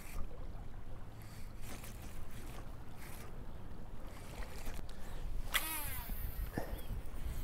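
A steady low rumble of wind and water, with a few faint clicks as a 13 Fishing baitcasting reel is handled. About five and a half seconds in there is a brief whirring burst that falls in pitch: the reel's spool spinning as line pays out on a cast.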